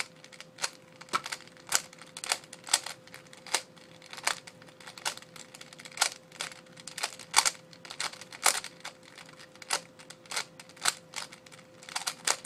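Layers of a Type C-II 3x3 Rubik's-type puzzle cube being turned by hand, with sharp plastic clicks coming irregularly, roughly one to three a second, as the cube is scrambled. A faint steady hum sits underneath.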